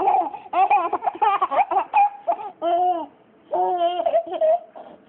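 A baby laughing hard in quick bursts, then letting out a few longer high-pitched calls with short pauses between them.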